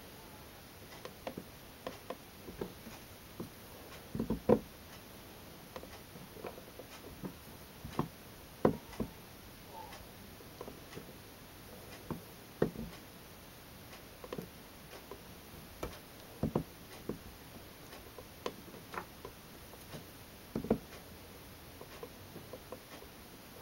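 A bar of goat milk soap being pushed and scraped by hand across a wooden soap planer and beveler, beveling its edges. It gives irregular light knocks and short scrapes of soap and wood against the blade and box, a few of them louder than the rest.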